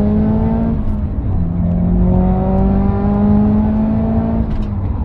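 Subaru Impreza WRX STI's turbocharged flat-four engine pulling hard from inside the cabin. The engine note climbs in pitch, drops for a gear change about a second in, then climbs steadily through the next gear before dropping again near the end, over road and tyre noise.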